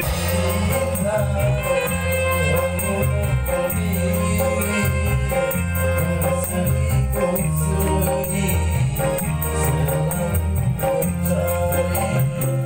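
A band playing a song live: electric bass guitar notes underneath, a melody line above, and a fast, even beat of short high ticks, about five a second.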